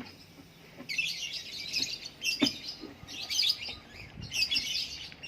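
Small birds chirping in repeated bursts of high twittering, roughly one burst a second, with a single sharp click about two and a half seconds in.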